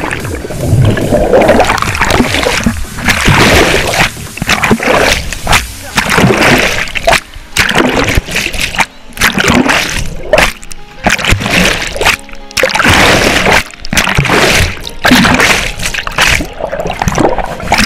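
Background music over water splashing and churning around a submerged GoPro Hero 3, heard as a string of loud, irregular swells.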